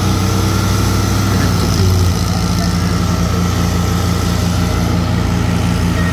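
Diesel engines of two 480 tractors running hard under heavy load as they pull against each other, a loud steady drone. The engine note shifts about two seconds in.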